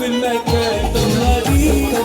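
Upbeat music with a steady beat and heavy bass.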